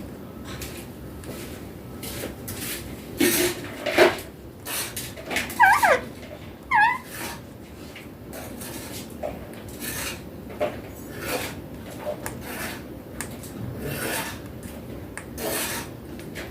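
Repeated short scratchy noises, with two brief squawks from a young Indian ringneck parrot about six and seven seconds in.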